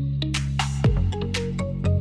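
Background music: a pop instrumental intro with a steady beat over held bass notes, and a swell that leads into a new section a little under a second in.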